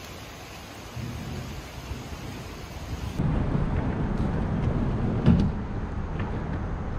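Wind noise and a low rumble of thunder as a storm comes over. About three seconds in, the plastic hull of an Old Town Sportsman kayak scrapes and knocks as it is dragged down a concrete boat ramp toward the water.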